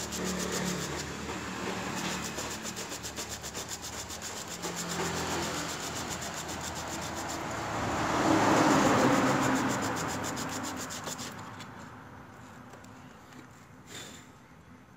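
A motorcycle gear position indicator switch rubbed back and forth by hand on sandpaper held flat, lapping its pitted copper contact face smooth: quick, even scraping strokes that grow louder toward the middle and die away after about eleven seconds. A small click near the end.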